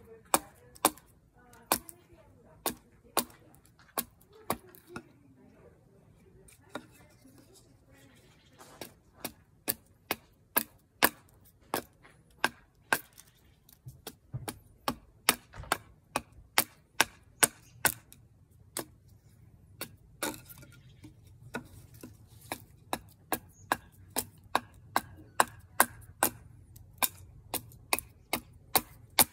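Gränsfors Bruk small carving hatchet chopping into wood in sharp, repeated strikes, sparse with a lull a few seconds in, then quicker at about two a second through the second half.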